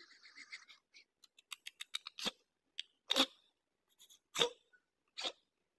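A hand scratching a small dog's chest and belly: a run of quick faint clicks, then short scratchy strokes about once a second.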